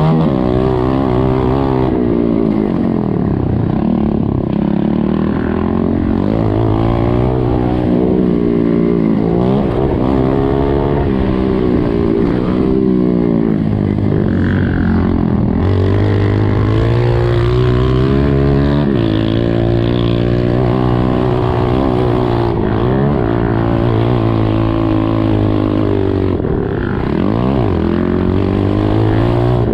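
Honda CRF125F's single-cylinder four-stroke engine heard from on board the bike, its revs climbing and dropping again and again as it shifts through the gears and slows for corners on a dirt motocross track.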